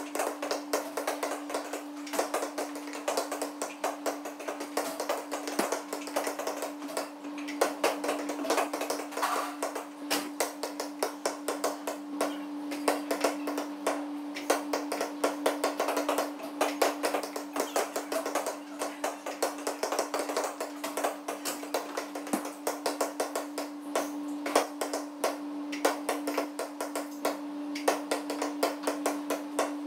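Music playing over a steady hum, with frequent sharp taps and clicks several times a second.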